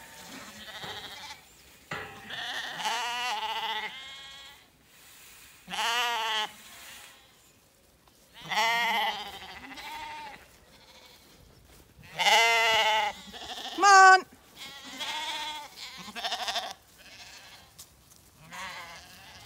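Zwartbles lambs bleating again and again, several voices with wavering calls, the loudest about twelve and fourteen seconds in.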